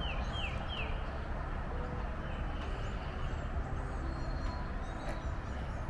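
Outdoor ambience: a steady low rumble with small birds chirping, three quick falling chirps right at the start, then a few fainter calls.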